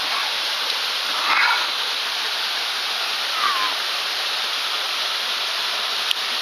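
Steady rush of a mountain stream running over cascades. A brief short sound comes about a second in, a short falling squeak near the middle, and a single click near the end.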